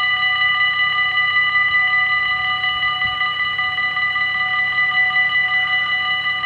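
Dutch level crossing warning bells ringing continuously, several bells at once in a rapid ringing that warns of an approaching train.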